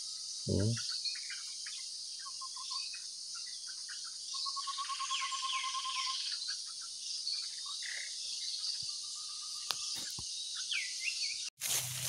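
Tropical forest ambience: a steady high insect drone, with several wild birds calling over it. The birds give short chirps, a rapid trill of about a dozen even notes lasting two seconds about four seconds in, and a few quick falling whistled notes. Near the end the sound breaks off abruptly and gives way to rustling.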